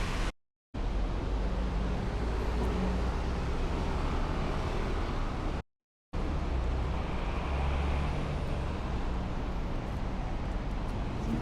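Steady road traffic on a busy city street, with the low rumble and hum of passing car and bus engines. The sound cuts out to silence twice, for about half a second each: once shortly after it begins and again a little before the middle.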